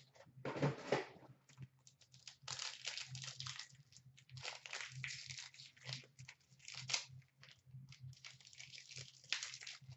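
Wrapper of a trading-card pack crinkling and tearing as it is handled and opened by hand, in many irregular short crackles, over a faint steady low hum.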